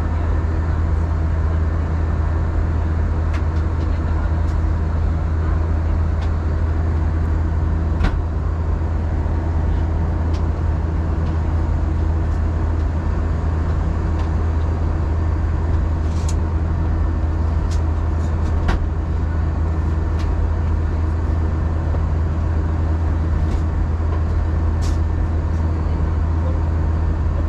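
Airbus A320 cabin noise in flight: a steady, loud low drone with a deep hum, with a few faint clicks now and then.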